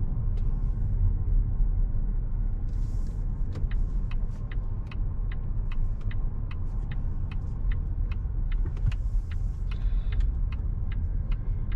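Steady low rumble of a car driving, heard from inside the cabin. From about three and a half seconds in, light sharp clicks come several times a second.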